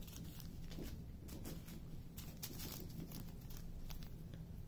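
Small plastic bag of diamond-painting resin drills being picked up and handled: faint, irregular crinkling and rustling of the plastic.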